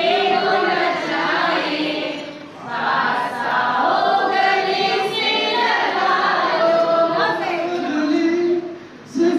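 A group of women singing a Hindi song together without instruments, led into a handheld microphone, with a short break about two and a half seconds in.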